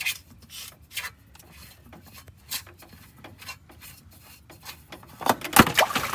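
Spin-on filter being turned off by hand on a Kubota tractor: short, irregular rubbing and scraping strokes. Near the end there is a louder clatter and splash as the filter comes free and fluid runs into the drain pan during a fluid-and-filter change.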